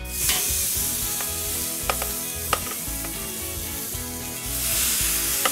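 Chicken breast pieces sizzling as they are seared over direct heat on a grill, the hiss growing louder about four and a half seconds in, with a few sharp clicks.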